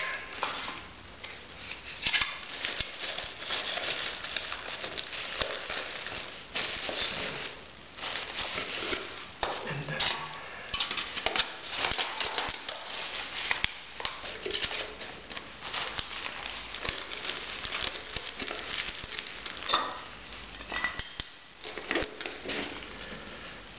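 A pouch crinkling and rustling as it is stuffed into a pot, with many short clinks and taps of metal cook pots and cups being nested together and a lid pressed on.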